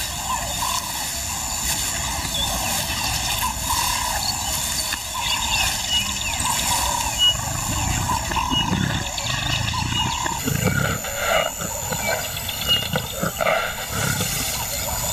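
Lion roaring: a series of deep roars, most of them in the second half.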